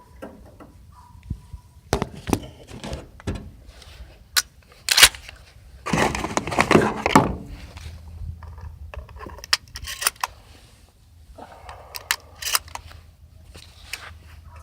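A 20-gauge Winchester Model 59 shotgun being handled and loaded with birdshot shells: a run of small metallic clicks, clinks and knocks, the sharpest about five seconds in, with a rustling patch a second later.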